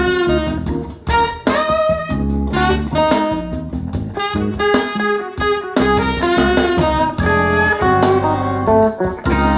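Jazz recording with saxophone lead over bass and drums, played back through an Audio Note valve amplifier and Audio Note AN-E loudspeakers.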